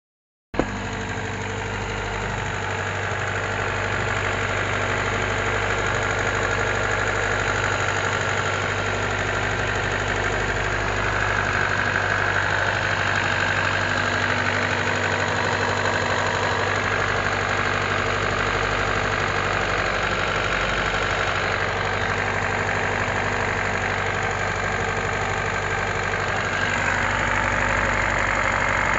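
Toyota Premio's 1ZZ-FE 1.8-litre four-cylinder engine idling steadily with a knock, starting about half a second in; the source of the knock is unknown to the owner.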